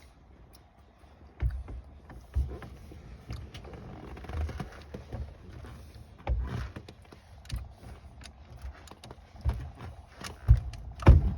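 Irregular knocks and clunks, with rustling in between, as a steering wheel is handled and fitted back onto a 1976 Chevrolet C10's steering column. The loudest knocks come near the end.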